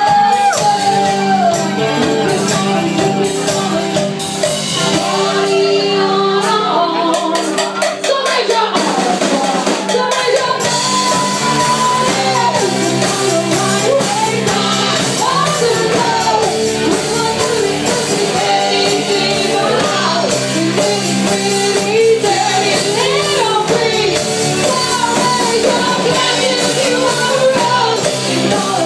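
A rock band playing live: electric guitar and drum kit under a woman singing into a microphone, with other voices shouting along. The low end drops out briefly about eight seconds in, then the full band comes back.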